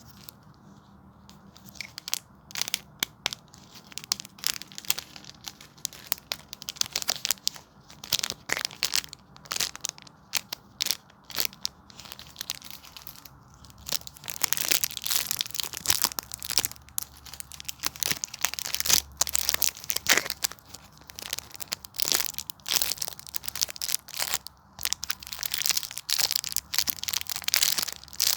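Homemade squishy toys being squeezed and handled close to the microphone: dense, irregular crinkling and crackling. It starts after a near-quiet first two seconds and grows thicker and louder about halfway through.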